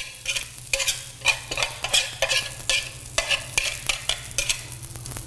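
Wire whisk scraping and tapping egg batter out of a bowl into a hot frying pan: a quick, irregular run of clicks and scrapes over the sizzle of the batter frying in the greased pan.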